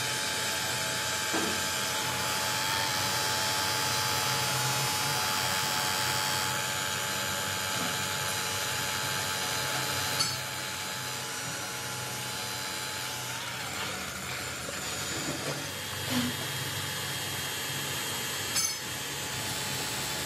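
Electric angle grinder with an abrasive disc running steadily against a chromed hydraulic cylinder rod, polishing it: a continuous motor whine over a dense grinding hiss, with two short clicks, one about halfway and one near the end.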